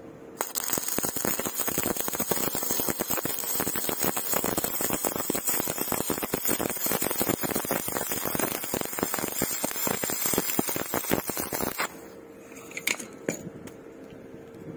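Stick (shielded metal arc) welding arc crackling and spitting steadily while a fillet bead is laid, striking about half a second in and breaking off abruptly after about eleven seconds. A few light clicks follow.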